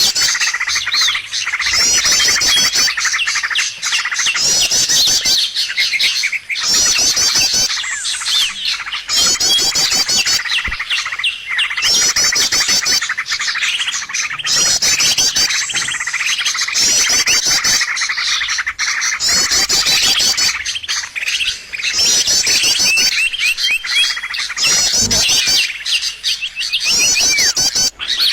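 Bird-trapping lure recording of small birds calling: dense, high twittering and trilled chatter, loud and nearly continuous, in short bursts that return every second or two.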